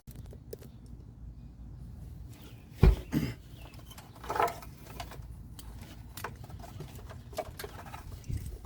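Hands handling and pulling tow-harness wires: irregular small clicks and rustles, with one sharp knock about three seconds in, over a steady low rumble.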